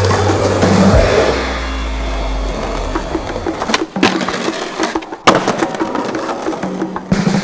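Skateboard wheels rolling over street pavement, with sharp clacks from the board's tail pops and landings. The backing music drops out about a second in.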